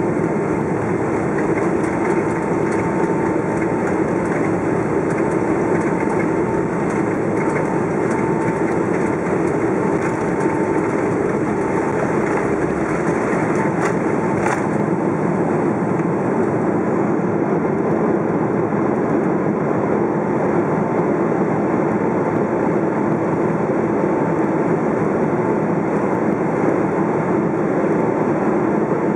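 Cabin noise inside a Boeing 777-300 on its takeoff run: the engines at takeoff thrust and the rumble of the runway roll, a steady dense noise with a faint steady whine.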